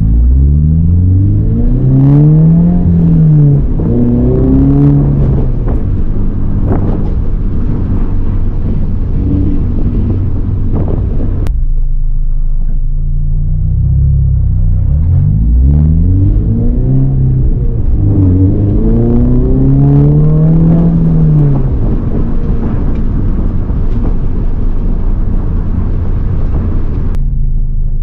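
2022 Subaru BRZ's 2.4-litre flat-four, fitted with headers, pulling up through the revs twice, the pitch climbing and dropping back between gears. The sound changes abruptly about eleven seconds in and again near the end, settling into a steady drone.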